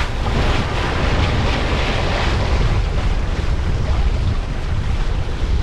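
Wind buffeting the microphone over the rush and splash of water along a sailboat's hull, the water noise swelling for a couple of seconds shortly after the start.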